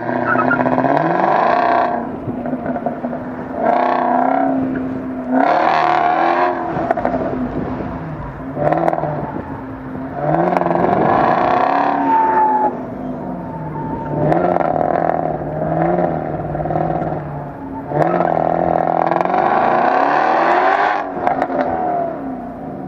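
FPV Boss 335 GT's supercharged 5.0-litre V8 driven hard on a motorkhana course. There are about seven bursts of full throttle, each with the revs climbing, and between them the engine drops back to lower revs as the car brakes and turns.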